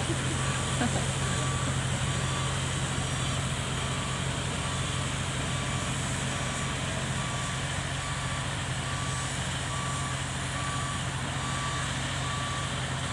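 An excavator's diesel engine running steadily with its travel alarm beeping at an even pace, a little faster than once a second, the warning that the machine is moving on its tracks.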